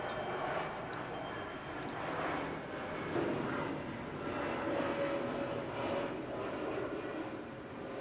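Ryobi 40-volt battery lawn mower running, its freshly sharpened blade making a steady whir as it cuts grass.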